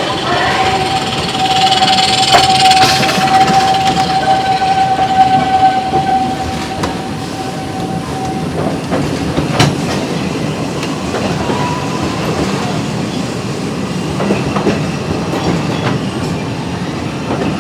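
Walt Disney World Railroad steam train running along its track, its passenger car rumbling and rattling, with a steady high-pitched squeal for about the first eight seconds and a few sharp clicks.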